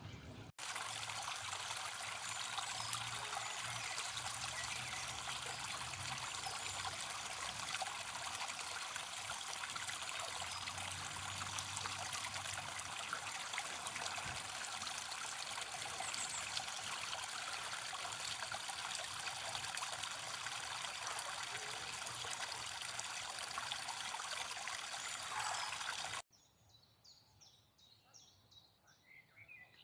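Running water, a stream trickling steadily, cuts off suddenly near the end. A quieter stretch of birds chirping follows.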